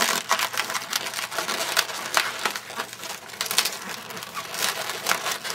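Inflated latex twisting balloons rubbing and squeaking against each other and the hands as the balloon model is handled and its twisted parts pushed into place: an irregular run of short squeaks and creaks.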